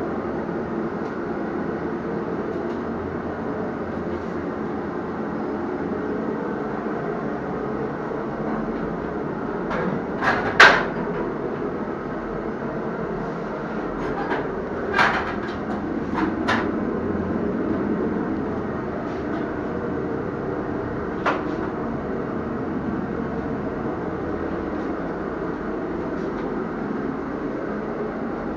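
A steady mechanical rumble, with a few sharp knocks or clicks: a loud one about ten seconds in, a small cluster around the middle, and a last one later on.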